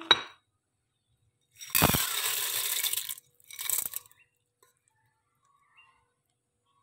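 Washed mung beans pouring from a ceramic bowl into a Yong Ma rice cooker's inner pot: a thump as the first mass lands, a rushing rattle of beans for about a second and a half, then a second, shorter pour.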